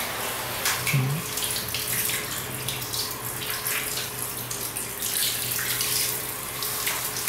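Handheld shower head spraying water held close against a wet Siberian Husky's coat, rinsing out the soap, with water running and splashing onto the tiled floor. A steady low hum sits underneath.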